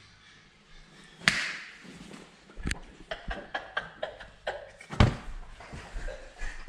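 A run of knocks and clicks: a sharp knock about a second in, several lighter clicks after it, and a heavy thump about five seconds in.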